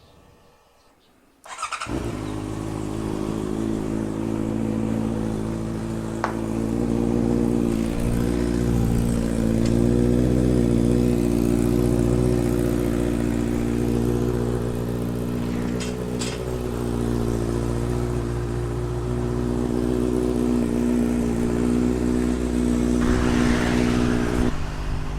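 Motorcycle engine that comes in abruptly about a second and a half in, then runs steadily at idle.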